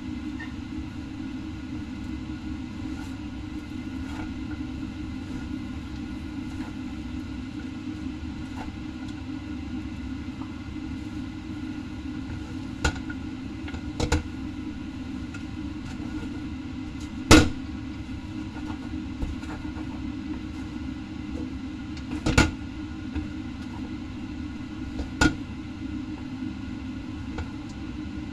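Wooden spatula and chopsticks knocking against a stainless steel wok a handful of times while noodles are stir-fried, the loudest knock about halfway through. Underneath is a steady low kitchen rumble.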